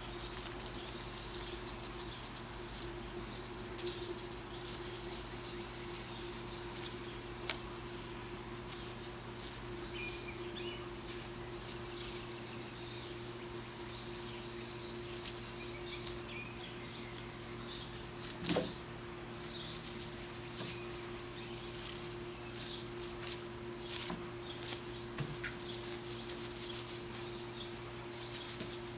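Outdoor ambience of small birds chirping again and again over a steady low hum, with a single sharp knock about two-thirds of the way through.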